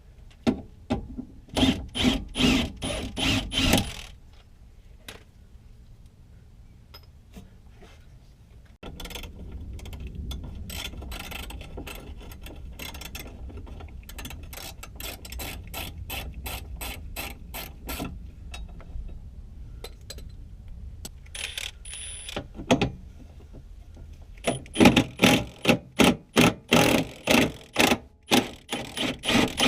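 Hand ratchet wrench clicking as suspension bolts are turned. It comes in two runs of quick strokes, a few a second, about a second in and again near the end.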